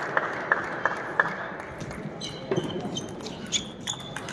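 Table tennis ball clicks: a steady run of light ball bounces about three a second for the first second, then the irregular knocks of a rally between bat and table, with shoes squeaking on the hall floor.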